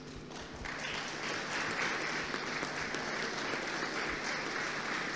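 Audience applauding, the clapping swelling up about half a second in and then holding steady.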